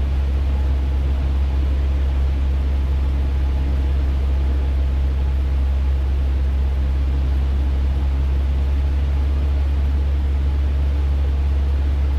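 Cessna 150's four-cylinder Continental O-200 engine and propeller running at a steady power setting in flight, heard as a constant low drone inside the cabin.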